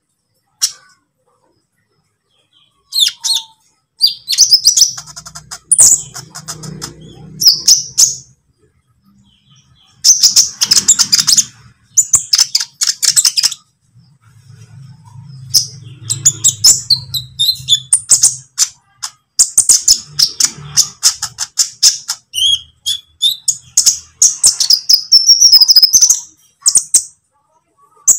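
Olive-backed sunbird (kolibri ninja) song: rapid, high-pitched twittering phrases in bursts, with short pauses between them. The song starts about three seconds in.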